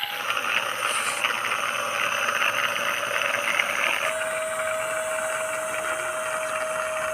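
Small coreless drone motor spinning a plastic propeller on a homemade toy helicopter car, a steady high-pitched whir; its pitch shifts abruptly about four seconds in.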